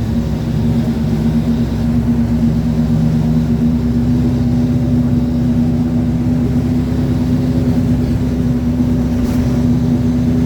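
Mercedes-Benz OF-1721 city bus under way at a steady speed: its diesel engine running, with the rear differential giving a steady, even growl-whine that holds one pitch.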